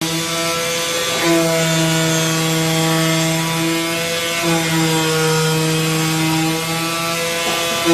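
AOKE DCZ70 CNC flatbed cutter running while cutting a graphite gasket sheet: a steady motor hum with a rough scraping noise over it. The hum's pitch shifts slightly about a second in and again about four and a half seconds in.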